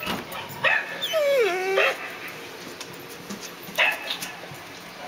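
Mixed-breed dog barking three short, sharp times, with a whining call about a second in that falls in pitch.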